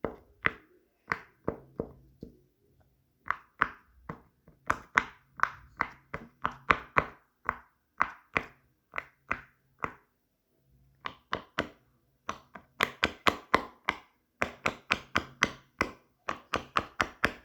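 Fidget toys being clicked and tapped by hand: a long run of sharp separate clicks, a few a second, with a couple of short pauses and a quicker run near the end.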